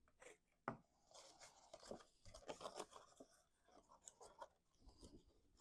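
Cardstock being handled and folded along its score lines: faint, irregular paper rustling and creasing with small taps, and one sharper tick about a second in.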